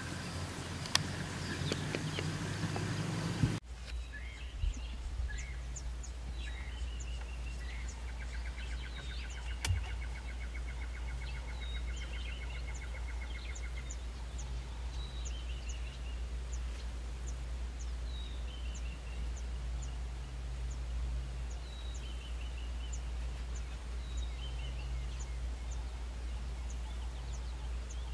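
Outdoor bush ambience. Birds call repeatedly with short high chirps and falling notes, and a rapid trill runs for about five seconds, all over a steady low rumble. A louder stretch of noise cuts off abruptly about four seconds in.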